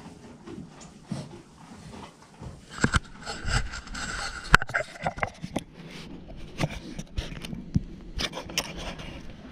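Close handling noise: scraping and rubbing with many sharp clicks and knocks, starting about three seconds in, with one loud click near the middle, as the camera is moved against clothing and a metal pin grooming brush.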